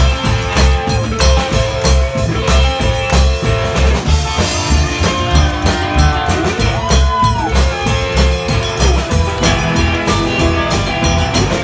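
Live band playing rock music: a drum kit keeping a steady beat of about two kicks a second under electric guitar and sustained instrument notes.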